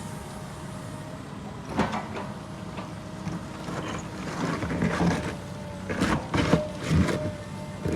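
Heavy construction machinery running with a steady engine hum, broken by several sharp metallic clanks and knocks, one about two seconds in and a cluster near the end.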